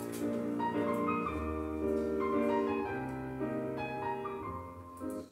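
Recorded piano class music playing, with held chords and melody notes, cutting off suddenly at the very end.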